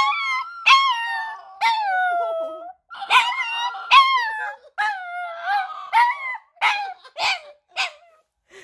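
Small dog howling in a run of short howls and yelps, each sliding down in pitch, the calls growing shorter toward the end.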